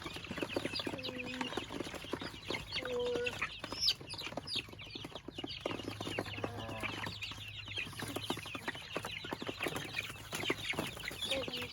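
A crowd of young Freedom Ranger meat chickens cheeping constantly, dozens of short high calls overlapping, with a few lower, briefly held calls among them.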